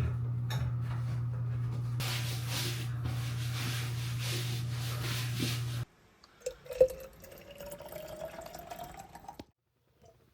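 A steady low hum with a burst of hiss in the middle cuts off suddenly; then liquid is poured into a container, its pitch rising steadily as the vessel fills, for about three seconds.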